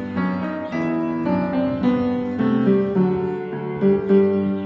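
Background instrumental music: a piano-like keyboard melody of separate notes following one another.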